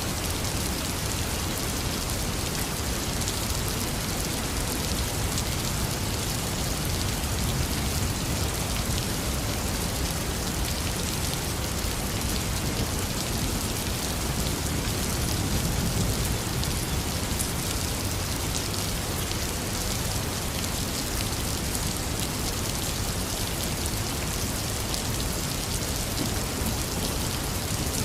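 Heavy rain falling steadily, a dense unbroken hiss of drops, with a low thunder rumble underneath that swells slightly around the middle.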